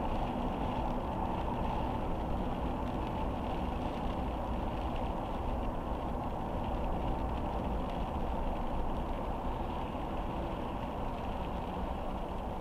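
A car driving in rain: a steady low rumble of road and engine noise with an even hiss from the tyres on the wet road, unchanging throughout.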